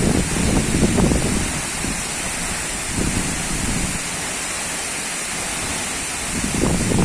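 Steady rush of a large waterfall close by, with wind buffeting the microphone in low gusts during the first second or so and again near the end.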